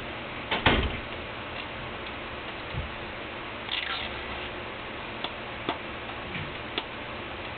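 Scattered light clicks and taps of something being handled, over a steady hiss. There is a sharp double click about half a second in, a low knock near three seconds and a short scrape about a second later.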